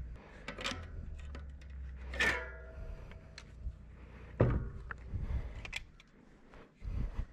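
Scattered clicks and knocks of hand tools against plastic and metal as a plastic spoke guard is pried and broken off a bicycle's rear wheel. A single ringing metallic strike comes about two seconds in, and a heavier knock about four and a half seconds in.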